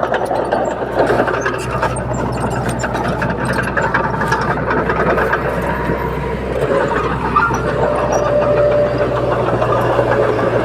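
Heavy diesel earthmoving machinery running steadily, with frequent metallic clanking and rattling.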